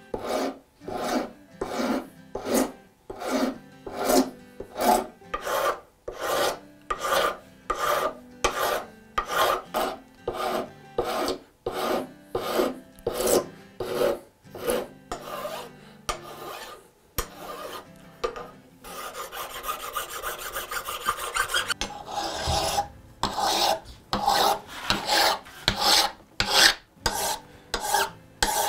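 Hand file scraping across the brass-edged walnut end of a bevel gauge, in steady strokes about two a second. About two-thirds through, the strokes give way to a few seconds of unbroken scraping, then resume a little faster.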